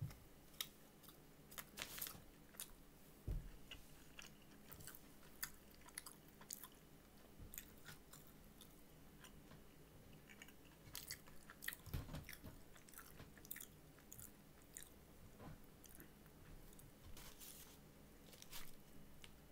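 A person chewing and crunching mouthfuls of a fried chicken sandwich, quietly, with many small sharp mouth clicks and an occasional dull knock.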